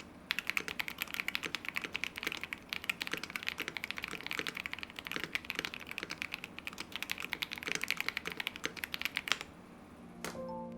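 Typing on a KBD67 Lite R2 mechanical keyboard with Akko Radiant Red linear switches, a polycarbonate plate and GMK Merlin clone keycaps: a fast, continuous patter of keystrokes. The typing stops about nine seconds in, followed by a couple of faint clicks.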